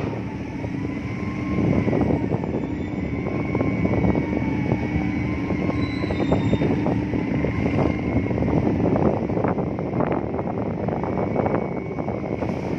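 Steady engine drone with a faint whine that slowly wavers in pitch, mixed with wind buffeting the microphone.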